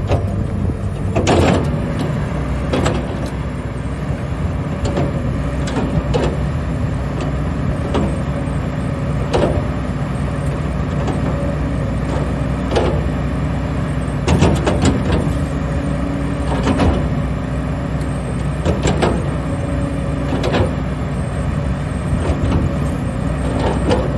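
Sumitomo 200A5 excavator's diesel engine running steadily, with sharp clanks and knocks every second or two.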